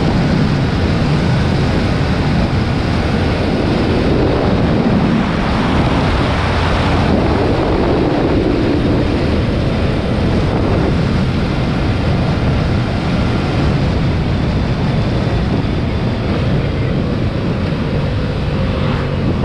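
Steady loud wind rush on the camera microphone while riding a Yamaha motorcycle at highway speed, with the engine and tyre noise underneath.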